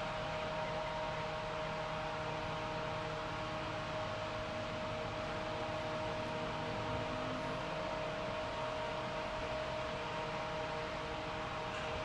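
Steady machinery hum with a constant whine over a hiss-like background, unchanging throughout.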